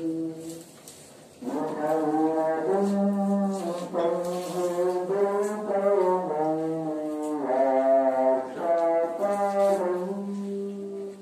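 A man's voice chanting an Islamic prayer in long, held melodic phrases, with a short pause about a second in.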